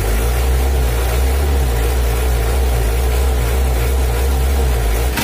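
Mitsubishi 4D56 four-cylinder diesel engine idling steadily, freshly set up after valve clearance and injection pump adjustment, running smooth and dry without harshness.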